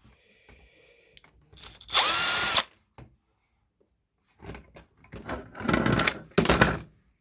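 Milwaukee 12-volt brushless drill driver spinning briefly, spinning up and then holding speed, as it backs out a T25 screw from a tool charger's casing. It is followed by a run of knocks and rattles, loudest near the end.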